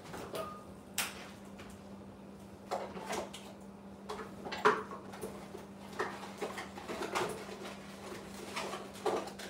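Scattered knocks and clinks of cookware and utensils being handled, with a steady low hum underneath.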